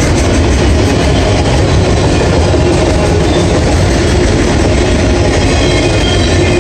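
Loud, steady rolling noise of freight-train autorack cars passing, their steel wheels running over the rails.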